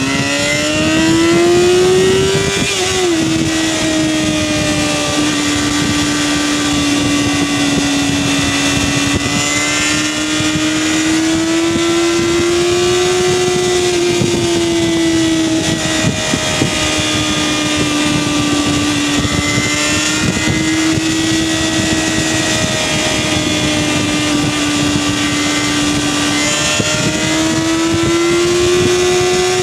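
2008 Yamaha FZ6's inline-four engine through an Arrow exhaust (cat-replacement tube and slip-ons), running at high revs under way. The revs climb, then drop at an upshift about three seconds in, and the engine then holds high revs with slow small rises and dips as the throttle is eased and opened. Steady wind rush sits under it.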